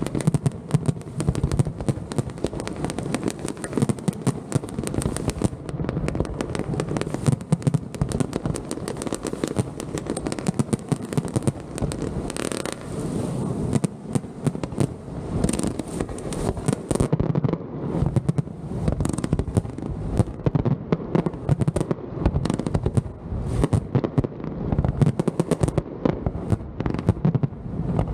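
Fireworks display: a continuous barrage of rapid bangs and crackles without a break.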